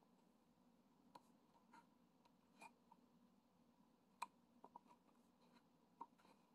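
Faint, scattered taps and clicks of a diamond-painting pen dabbing resin drills onto the sticky canvas, about half a dozen over several seconds, over a low steady room hum.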